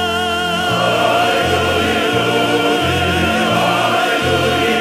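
Military choir and orchestra music: a long high note held with vibrato over a bass line that steps back and forth between two notes.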